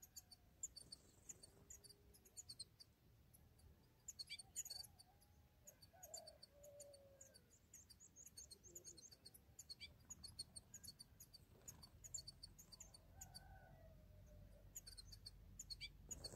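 Faint, high twittering of small songbirds: many short chirps in quick, irregular succession, with a few softer, lower whistled calls mixed in.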